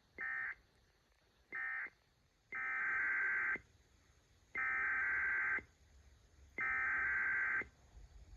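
Emergency Alert System SAME digital data bursts, a warbling two-tone modem sound. First come two short end-of-message bursts that close one alert. After a pause, three longer header bursts of about a second each, a second apart, open the next alert.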